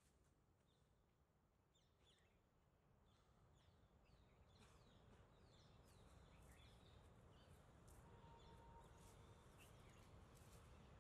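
Near silence: faint outdoor ambience with distant birds chirping repeatedly, the background hum fading up a few seconds in.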